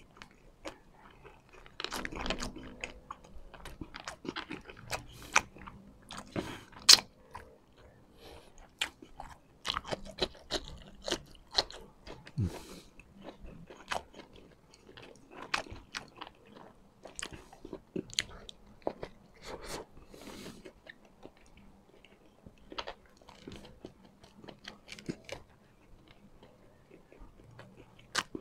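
Close-miked chewing of a mouthful of rice and pork adobo: a steady run of wet mouth clicks and smacks, with one louder smack about seven seconds in.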